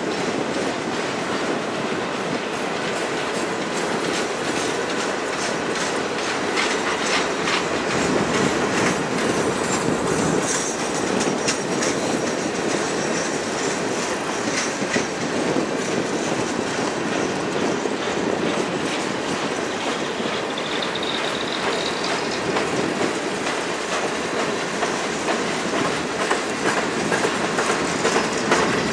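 Freight train cars (autoracks and covered grain hoppers) rolling past steadily, their steel wheels clicking over rail joints. A brief rising squeal comes about three-quarters of the way through.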